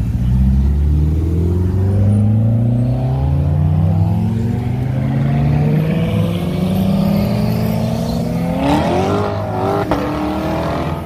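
Car engine accelerating, its pitch climbing slowly over the first six seconds. About nine seconds in, a hard rev sweeps sharply upward, followed by a brief crack.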